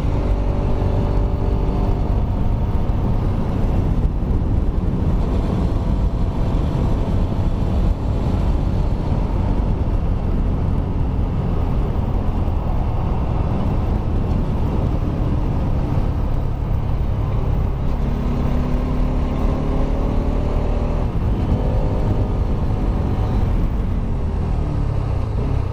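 Kawasaki Rouser RS200's single-cylinder engine running with the exhaust canister removed, ridden on the road, under a steady low wind rumble. Its pitch rises and falls near the start and again at about three-quarters of the way through as the revs change.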